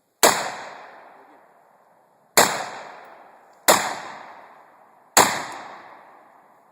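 AR-15 rifle fired four single shots, the gaps between them ranging from just over one second to about two seconds. Each sharp crack trails off over about a second and a half.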